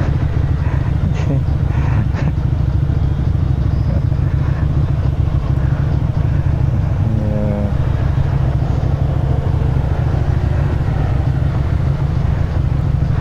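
Motorcycle engine running with a steady low drone, heard from the rider's position. There are a few short clicks a second or two in, and a brief pitched sound about seven seconds in.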